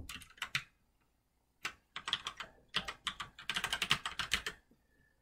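Typing on a computer keyboard: a few keystrokes at first, then after a short pause, quick runs of keystrokes that stop shortly before the end.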